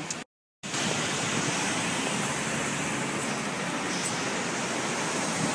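Steady rush of city traffic noise, even and unchanging, after a brief dropout to silence near the start.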